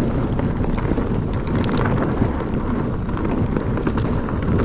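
Wind rushing over the camera microphone and the mountain bike's tyres rumbling on a dirt trail during a ride, with a few light clicks and rattles about a second and a half in.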